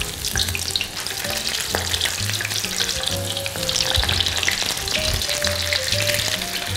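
Tempura-battered prawns deep-frying in hot oil just after being dropped in: a dense, steady crackling sizzle of vigorous bubbling.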